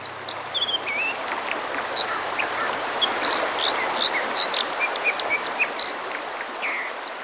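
Steady rush of a flowing creek with small birds chirping over it: many short, high chirps and trills scattered throughout.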